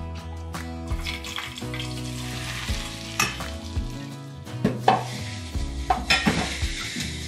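Caraway seeds sizzling in hot oil in a small stainless saucepan, then the hot oil sizzling over chopped kale in a stainless steel bowl as it is stirred with chopsticks, with a run of sharp crackles and pops in the second half.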